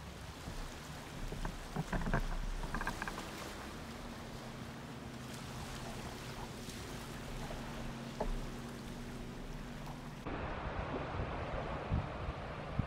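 Water sounds from a kayak on the water: a few splashes and knocks early on, then steady water and wind noise with a faint low hum. About ten seconds in it cuts abruptly to a louder, even hiss of water and wind on the microphone.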